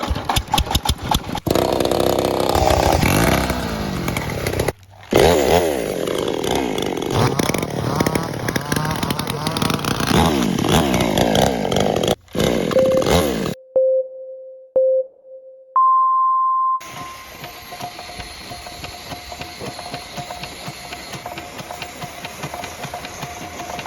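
Small hand-crank-started diesel engines running in several short clips, speeding up and slowing down. Partway through the sound drops out for a few seconds except for a few short beeps, then a quieter engine runs steadily.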